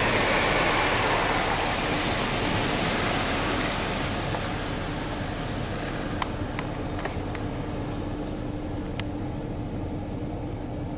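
Water spray from a Ryko Softgloss Maxx in-bay car wash hissing against the truck, heard from inside the cab, fading away over the first several seconds. After that, a quieter steady hum with a few sharp ticks.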